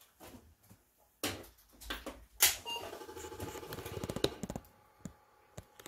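An Apple IIe is switched on with a sharp click and gives a short beep. The Apple II floppy drive's head then chatters rapidly for about two seconds as it steps back against its stop to recalibrate at boot, after which the drive motor runs with a faint steady hum.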